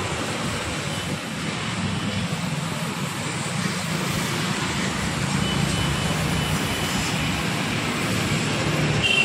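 Street traffic noise: a steady hiss with the hum of engines, and a short high beep near the end.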